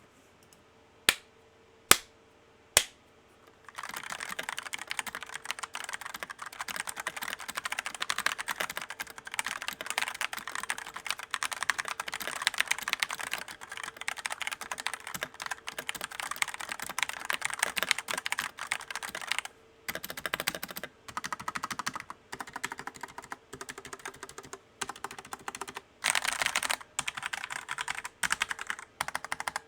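Redragon K551 mechanical keyboard with stock Outemu Red linear switches being typed on. Three single key presses come first, then fast continuous typing, a short pause just under two-thirds of the way through, and more typing in bursts.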